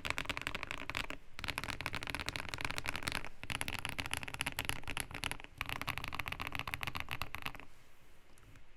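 Fast typing on a Keydous NJ80 custom mechanical keyboard with lubed KTT Kang White linear switches, a brass plate and PBT keycaps: rapid streams of keystrokes with a few short pauses, stopping about a second before the end.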